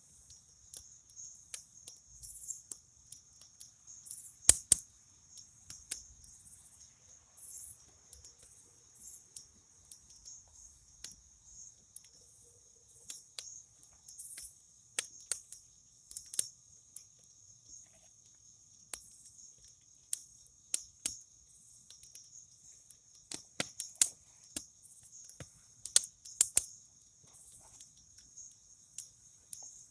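Campfire crackling with sharp, irregular pops, the loudest about four and a half seconds in, over a steady high chorus of crickets.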